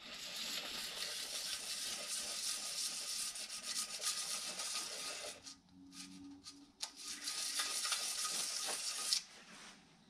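A small metal ignition-switch contact part rubbed back and forth by hand on a sanding belt, a scratchy abrasive rasping. It stops briefly about five and a half seconds in and then resumes. The contact surface is being lapped flat.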